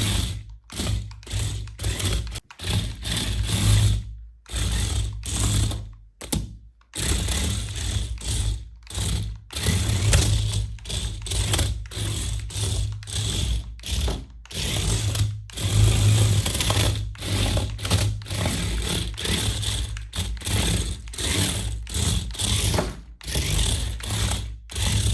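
Small electric motor and plastic gears of a toy remote-control car running in short stop-start bursts.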